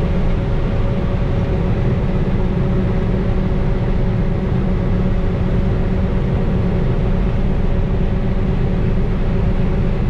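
Combine harvester running steadily while harvesting corn: a constant, even engine-and-machinery drone with a steady held hum.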